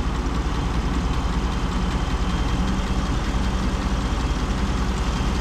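2017 Chevy Silverado's 6.2-litre V8 idling steadily with the AC on and the newly fitted AC compressor engaged and running.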